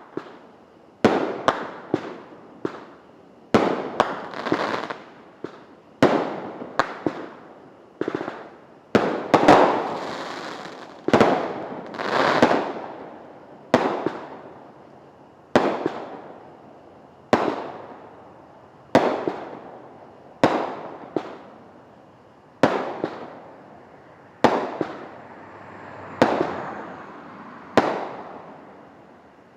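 Liberty Bell consumer fireworks going off: about two dozen sharp bangs, each trailing off. They come bunched together at first, then settle to about one every second and a half to two seconds.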